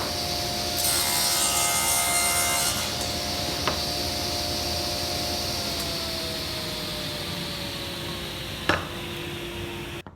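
Table saw running with its steady whine, with a blade cut through hardwood for a couple of seconds early on. Later the whine slowly falls in pitch as the blade spins down, with a sharp knock shortly before the end.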